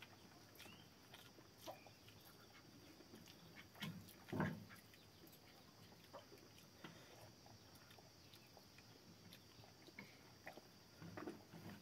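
Quiet eating sounds: fingers mixing rice on steel plates and chewing, with scattered faint clicks and one louder short mouth sound about four and a half seconds in.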